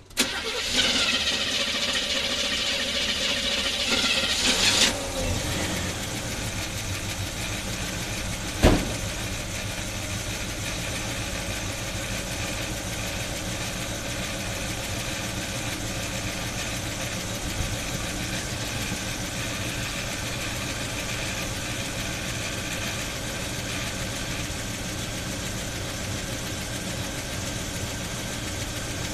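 1976 Chevy Blazer's V8 running with the air cleaner off the carburetor. For the first five seconds or so it is louder with a strong high hiss, which cuts off abruptly before the engine settles to a steady idle. A single sharp knock comes about nine seconds in.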